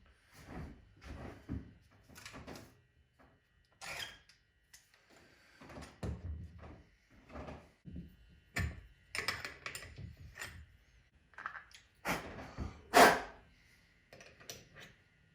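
Irregular knocks, clunks and short scrapes of objects being handled and set down on a workbench, the loudest about thirteen seconds in, over a faint steady high hum.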